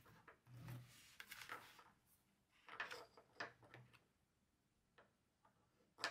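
Faint paper handling: a few short rustles and slides as a large sheet of paper is laid on a desk, opened out and pressed flat by hand.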